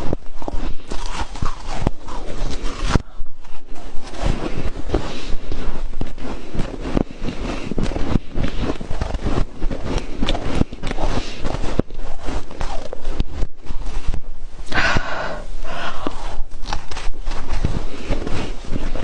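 Close-miked crunching and chewing of freezer frost: a dense, continuous run of crisp crackles, with a louder rasping burst about three-quarters of the way through.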